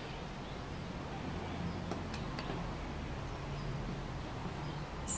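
Steady low background hum with a few faint clicks, about two seconds in, as a small stripboard panel is pressed onto the enclosure's pin headers.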